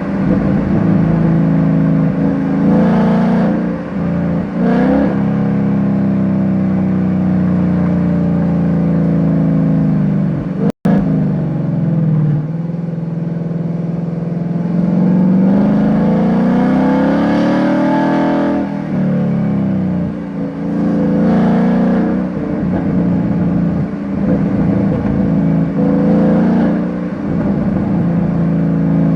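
2020 Ford Mustang GT's 5.0 L Coyote V8 through a Borla Switchfire X-pipe exhaust, heard close at the trunk lid. The engine revs up and drops back in pitch several times, and pops and crackles on the overrun when the throttle closes.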